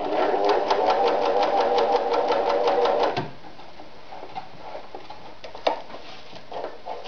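Riccar 906E electronic sewing machine stitching cotton fabric at a fast steady speed, with about eight stitch ticks a second, then stopping suddenly about three seconds in. Afterwards the fabric is handled, with light rustles and a single sharp click.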